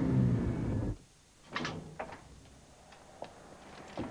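Low rumble of a car's interior for about a second, then it cuts off, and a door's lock and latch clatter and click a few times as the door is opened. The loudest clatter comes about a second and a half in.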